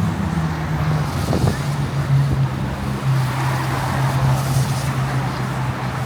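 A motor engine running with a steady low hum, its pitch dropping slightly about a second in, over a constant hiss of wind, rain and surf.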